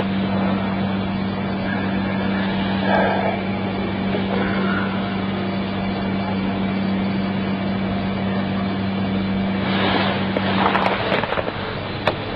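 Steady low electrical hum over a constant hiss, heard through a CCTV camera's microphone. About ten seconds in come a few short rustling noises and sharp clicks.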